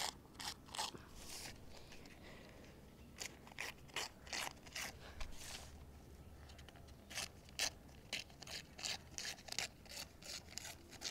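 Paper being cut into a strip: a run of short, crisp rasping strokes, irregular at first and coming about three a second in the second half.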